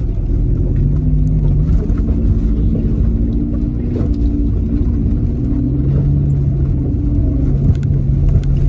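Non-turbo five-cylinder engine of a lowered Volvo running at low revs, its pitch shifting slightly, over a steady low rumble as the car crawls down a rutted dirt track, with a few light knocks.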